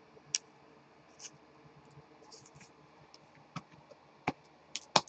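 Baseball trading cards being handled by hand: soft scratchy slides of card against card and a handful of sharp clicks and taps, the loudest near the end.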